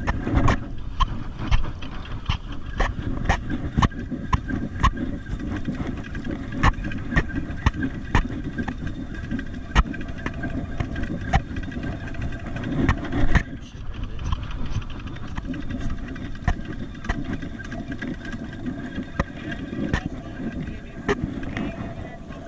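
Low rumbling handling noise and rustle of a rain-jacket sleeve against the camera, with irregular sharp clicks, while a Penn spinning reel is cranked to retrieve the line.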